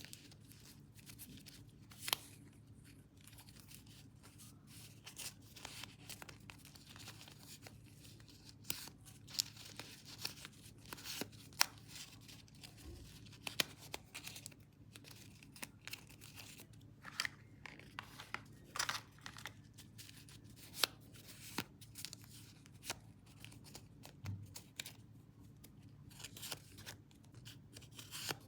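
Paper being handled for a journal page: short, irregular crackles and rustles of paper, some like tearing or cutting, over a faint low hum.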